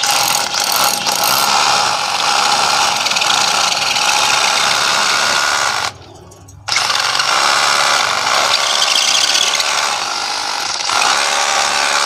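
DeWalt DCH072 cordless rotary hammer drilling into a masonry wall with a large bit. It stops briefly about six seconds in, then runs again.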